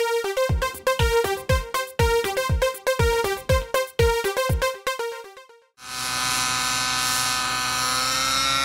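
A short electronic news jingle with repeated synth notes and deep, falling drum hits, which ends about six seconds in. It is followed by the steady, high whine of a radio-controlled model helicopter's engine and rotor in flight.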